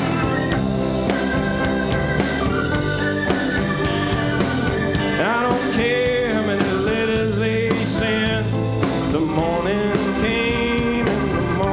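Live country-rock band playing: guitars, bass, drums and organ, with a lead line that bends and slides in pitch in the middle and again near the end.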